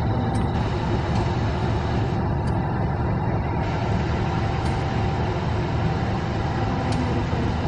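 CC 201 diesel-electric locomotive running steadily: a deep, even engine rumble with a faint steady whine above it.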